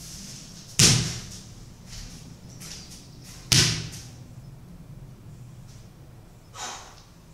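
Two loud thuds about three seconds apart, each dying away quickly, and a fainter knock near the end.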